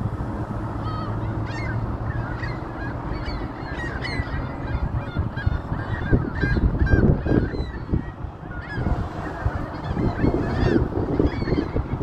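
A flock of gulls calling, many short cries overlapping and repeating. An uneven low rumble runs underneath.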